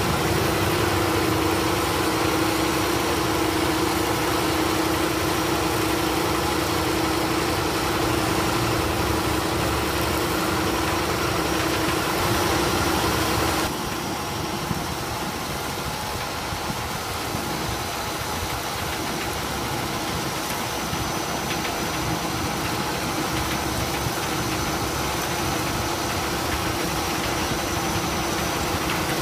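John Deere tractor engine running steadily under load as it drives an SP61 verge milling machine cutting the road shoulder and throwing out soil. The sound is a continuous machine hum with a strong steady tone, and it changes abruptly about halfway through, becoming a little quieter.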